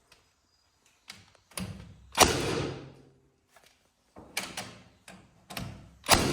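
A string of sharp wooden knocks and thuds, about eight at uneven intervals, each ringing briefly, as framing lumber is knocked into place and fixed in a wall frame. The loudest come about two seconds in and right at the end.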